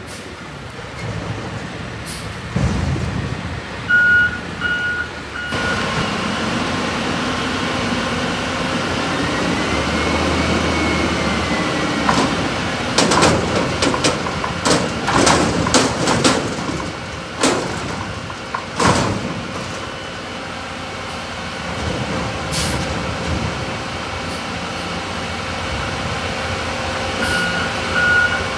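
Natural-gas Peterbilt 320 front-loader garbage truck with an Amrep body running, its reversing alarm beeping about four seconds in and again near the end. In between, its hydraulics whine as the forks raise a dumpster over the cab, followed by a series of loud bangs as the dumpster is shaken out into the hopper.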